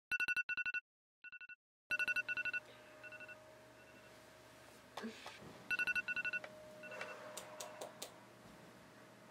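A mobile phone beeping: quick groups of short, high electronic beeps, about four to a group, repeating several times. Between and after the beeps, soft rustles and clicks as the sleeper stirs under the bedding and reaches for the phone.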